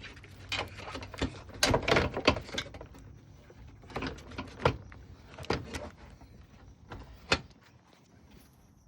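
Plastic radiator fan shroud and its clips being handled and pushed into place against the radiator: a string of irregular knocks and clicks, loudest about two seconds in, with one sharp click about seven seconds in.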